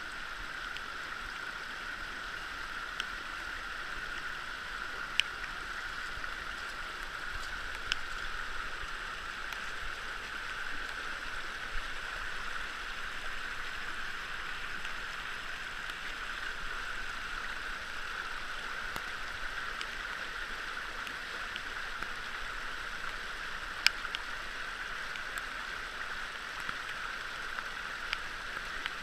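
Mountain creek water rushing steadily over rocks and through an aluminium Eldorado sluice box, with a few sharp clicks scattered through it.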